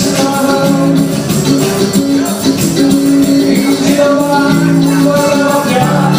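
Band music playing: held melody notes over a steady percussion beat with tambourine-like jingling.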